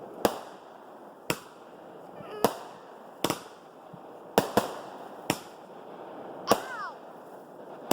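Fireworks bursting: about eight sharp bangs at uneven intervals, roughly a second apart, two of them in quick succession about halfway through.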